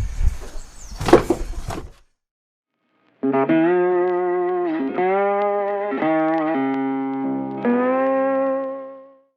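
Guitar music, with single notes that bend and slide, starting after a brief dead silence and fading out near the end. Before it, for about two seconds, there is noisy clattering with a sharp knock about a second in.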